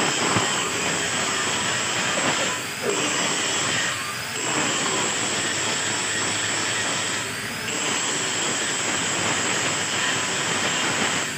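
Angle grinder running against steel, a steady high whine over a loud hiss, dipping briefly three times as the disc eases off the metal.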